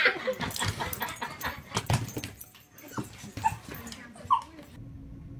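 A dog giving a couple of short whimpering yips amid scattered knocks and clatter, which fall away near the end to a faint steady hum.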